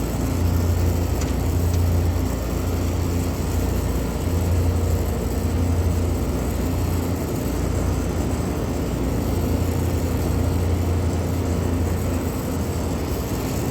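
A large machine running steadily with a low, even drone.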